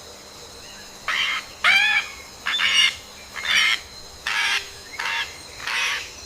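A bird giving a series of harsh, squawking calls, about seven in quick succession, each about half a second long, starting about a second in.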